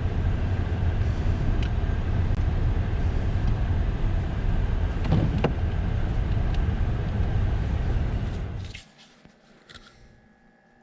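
Motor vehicle driving, heard as a steady low rumble of engine and road noise with a couple of small knocks about five seconds in. The rumble cuts off abruptly about nine seconds in, leaving near quiet with a faint steady tone.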